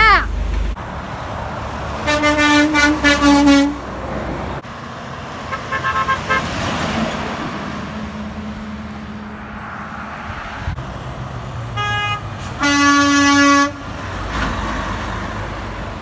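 Trucks passing with their engines running and sounding their horns: a run of quick honks about two seconds in, fainter short honks a few seconds later, then a few short toots followed by one long blast about a second long near the end.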